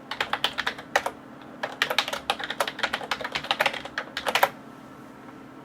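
Typing on a computer keyboard: a quick, uneven run of key clicks with a short break about a second in, stopping about four and a half seconds in.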